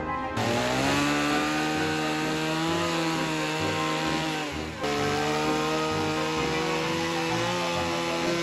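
Gas chainsaw running and cutting into a block of wood, its pitch dipping and rising as it loads up in the cut. The sound changes abruptly twice, about a third of a second in and again near five seconds in.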